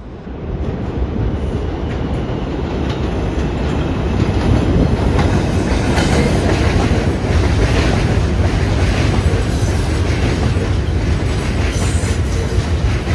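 New York City subway train running into the station, its rumble building over the first few seconds and then holding loud. Its wheels clack over the rail joints.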